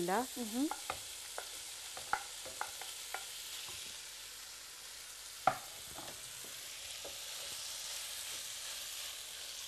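Minced meat frying in a pan with a steady sizzle as peas and carrots are tipped in and stirred with a wooden spoon. Several sharp knocks of the spoon against the pan, the loudest about five and a half seconds in.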